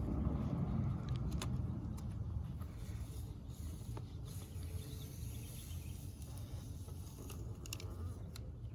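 Steady low background rumble with a few light clicks and taps scattered through it.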